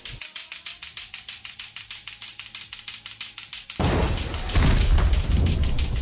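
Lato-lato clacker balls knocking together fast and evenly, about eight clacks a second. About four seconds in, a loud crash and rumble of a building collapsing cuts in and stays loud.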